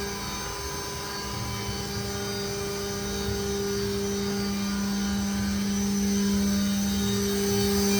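2021 Haas VF-6/40 CNC vertical machining center running under power: a steady electric whine over a low hum, growing slowly louder.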